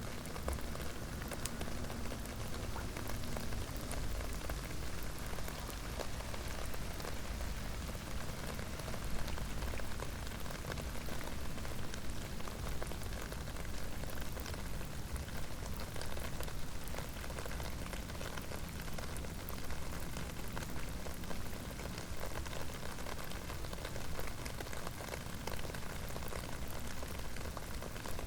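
Steady rain falling: a dense, even hiss with many small, sharp drop ticks scattered through it.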